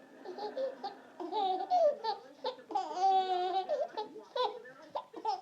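A baby with the hiccups laughing in short high-pitched bursts, with a longer squealing laugh about three seconds in.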